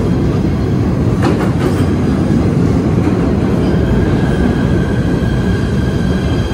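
PATH PA5 subway train pulling into an underground station and running past close by: a loud rumble of wheels on rail with a couple of clacks about a second in. A high steady squeal joins from about four seconds in as the train slows.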